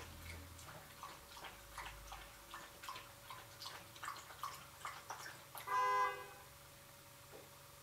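Faint, irregular clicks, then a single loud horn-like tone, steady and made of several stacked pitches, lasting about half a second, about six seconds in.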